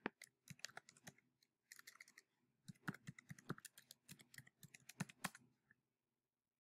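Quiet, irregular keystrokes of typing on a computer keyboard as a username and password are entered, stopping shortly before the end.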